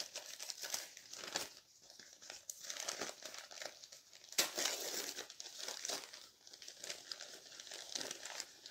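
Newspaper wrapping crinkling and rustling in irregular handfuls, with some tearing, as hands pull it off a potted plant; the loudest rustle comes about halfway through.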